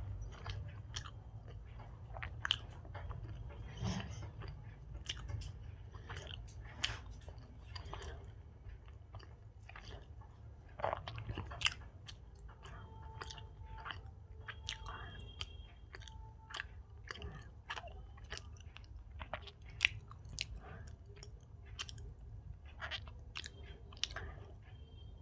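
Close-miked chewing of Indian sweets: irregular wet mouth clicks and smacks over a steady low hum.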